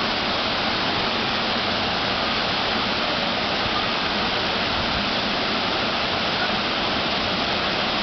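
Waterfalls pouring into a rock pool: a steady, unbroken rush of falling water.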